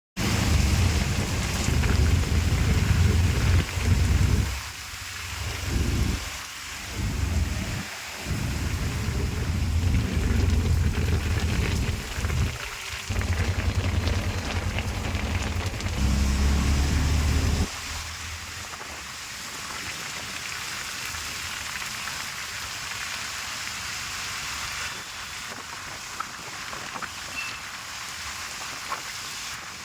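Heavy rain pouring down as a steady hiss, with a loud low rumble that comes and goes through the first half and cuts off suddenly a little past halfway.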